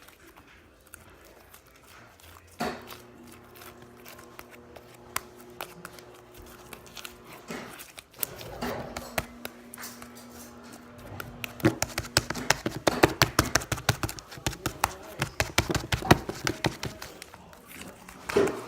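Homemade slime being kneaded and squished in the hands, a run of wet clicks and pops that grows denser and louder after about eleven seconds.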